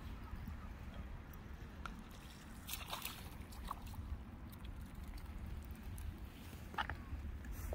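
Wind rumbling on the microphone, with water sloshing at the shoreline and a few short splashes, the clearest about three seconds in and again near the end.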